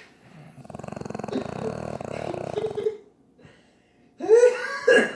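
One long snore, a fast fluttering buzz of about two seconds. About a second later comes a short, louder voiced sound that slides in pitch.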